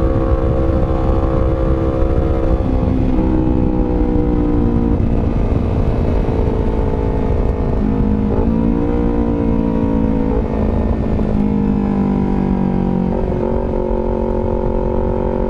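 Honda CBR250RR engine running through an R9 GP Series aftermarket exhaust. Its pitch steps up and down several times.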